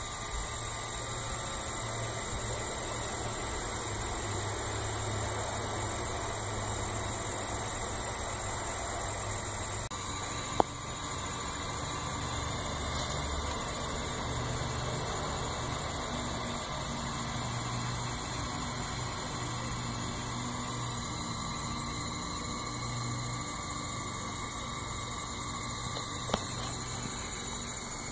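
Diode laser engraver at work: a steady mechanical hiss with thin whining tones, under a low hum from the stepper motors driving the rotary turntable and gantry, which starts, stops and shifts as the moves change. Two sharp clicks, one about ten seconds in and one near the end.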